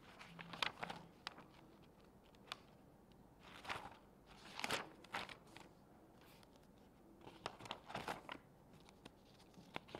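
Sheets of paper rustling and crinkling as they are handled and turned close to a desk microphone, in three short bouts: about half a second in, around the middle, and near the end.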